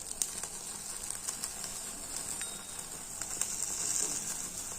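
Tandoori chicken sizzling over an open stove flame as it is charred for a smoky finish: a steady high hiss with small scattered crackles.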